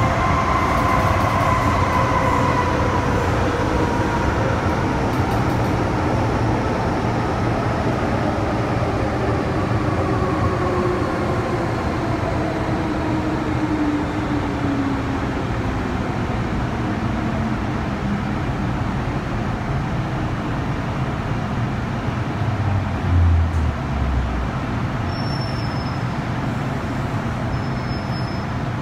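Cabin sound of an MTR Metro-Cammell electric multiple unit slowing into a station: a steady running rumble, with a traction whine that falls steadily in pitch as the train brakes. A short low thump comes about 23 seconds in, as the train comes to a stop.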